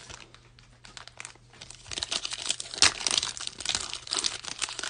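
Foil wrapper of a basketball trading card pack crinkling and crackling as it is picked up and handled, faint at first and growing dense and louder after about two seconds.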